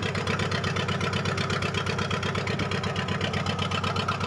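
Fishing boat's inboard engine running steadily, a low, even, rapid beat.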